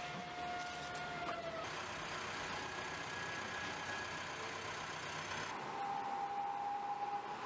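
Car assembly-plant floor ambience: a steady hiss of machinery overlaid with a sustained electronic tone that jumps to a new pitch every two seconds or so.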